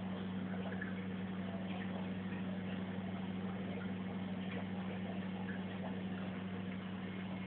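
Aquarium filter pump running: a steady low hum with faint trickling water and small scattered ticks.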